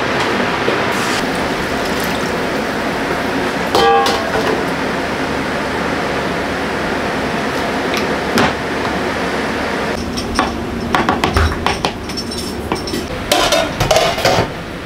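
Wok cooking: a steady loud rush of noise, with a metal ladle clanking and ringing against the wok about four seconds in. In the last few seconds comes a quick run of metal clatters and clanks from ladle, wok and dishes.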